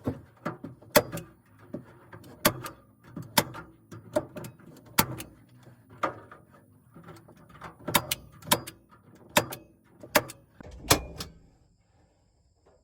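Irregular sharp knocks and clatter of hands-on work, roughly one knock every half second to a second, stopping about a second before the end.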